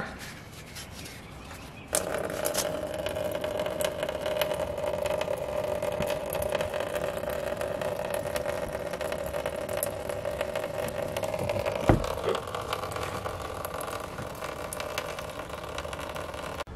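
Coolant streaming out of a 2005 Toyota Camry's opened radiator drain and splashing into a plastic drain pan. The steady stream starts suddenly about two seconds in, with a single knock about twelve seconds in.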